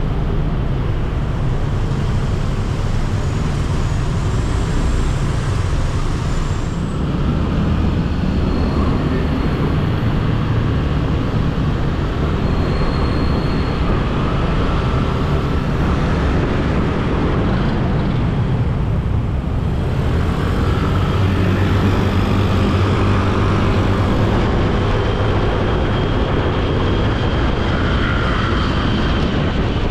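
Motorbike engine running steadily while riding through city street traffic, with the noise of surrounding cars and scooters.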